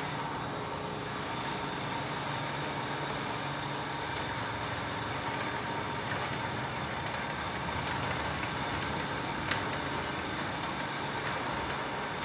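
Homemade cylinder-honing machine running with its electric motor turning the spindle: a steady motor hum with a thin constant whine. It is running free, without the honing head fitted.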